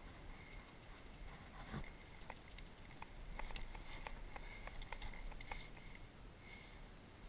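Faint, sharp, irregular clicks and pops over low outdoor noise, typical of distant airsoft gunfire, scattered through the middle of the stretch.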